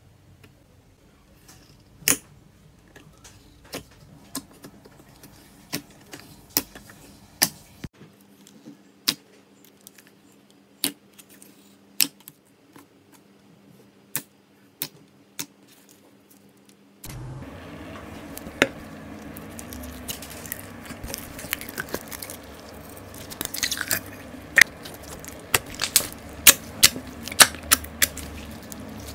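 Slime being worked by hand, making sharp, irregular clicks and pops. About seventeen seconds in, the background noise steps up abruptly and the pops come closer together.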